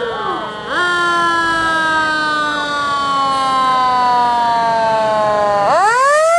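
Fire engine siren wailing: its pitch rises about a second in, falls slowly for several seconds, then climbs sharply again near the end.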